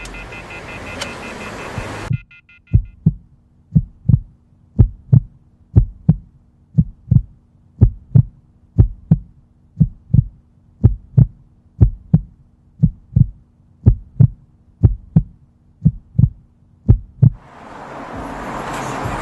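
Heartbeat sound effect: pairs of low thumps about once a second over a low steady hum, coming in about two seconds in after the street ambience cuts off. Traffic noise fades in near the end.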